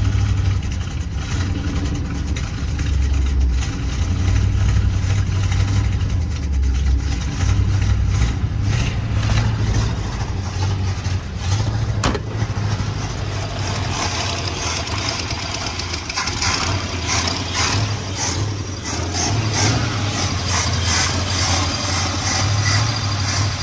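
Carbureted engine of an old squarebody Chevy Blazer running on its own just after being revived from a scrap yard, its level rising and falling a little; it doesn't sound terrible. A sharp click comes about twelve seconds in, and quicker ticking and rattling sounds through the second half.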